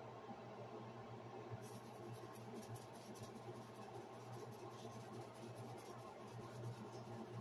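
Creole seasoning shaken from a shaker can onto raw beef neck bones: a faint, rapid, scratchy patter of falling granules that starts about one and a half seconds in, over a steady low hum.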